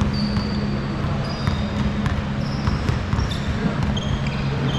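Basketball game in a gym: sneakers squeak in short, repeated chirps on the court while the ball bounces, with voices underneath.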